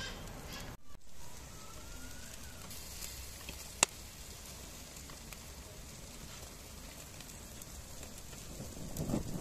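Charcoal fire under skewered ground-meat kebabs and tomatoes, with a steady sizzling hiss and one sharp pop about four seconds in.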